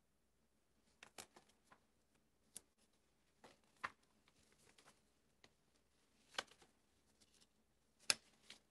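Paper pages being leafed through and shuffled on a lectern: short, scattered rustles and light taps against near silence, the loudest about 4, 6.5 and 8 seconds in. The pages are being searched for a missing sheet.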